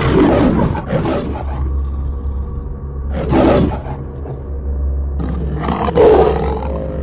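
Tiger roaring three times, a few seconds apart, each roar rough and loud.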